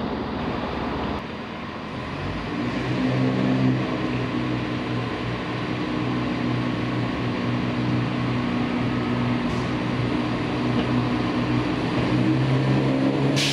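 Class 170 Turbostar diesel multiple unit pulling slowly into a platform, its underfloor diesel engines giving a steady low drone with a pitched hum that grows stronger near the end. For about the first second, an HST coming out of a tunnel.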